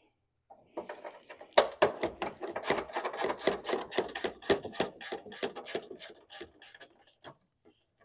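Hand ratchet clicking rapidly as it works a 10 mm bolt holding down the power steering reservoir, starting about a second in and dying away near the end.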